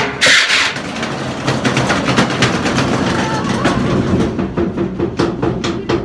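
Washing machine drum with the casing removed, spinning with a loose heavy object inside that bangs and clatters against it over a steady motor hum. A loud bang at the start, then rapid knocking that settles into an even beat of about three knocks a second.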